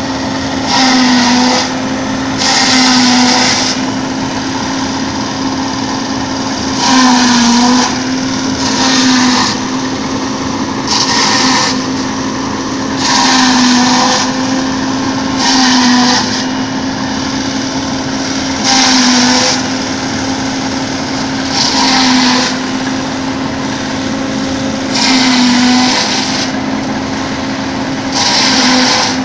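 Tractor-driven fodder chopper (chaff cutter) running with a steady machine hum, broken every two to three seconds by about a second of loud rushing crunch as armfuls of green stalks are fed in and chopped. Under each load the hum's pitch dips briefly.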